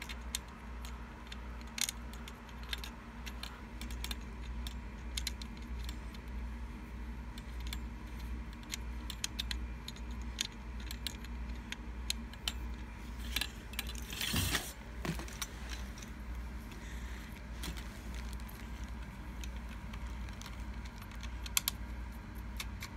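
Small clicks and rattles of aluminium tripod legs and plastic leg brackets being handled, with a plastic thumbscrew being threaded into a bracket, and a louder clatter about two-thirds of the way through, over a steady low hum.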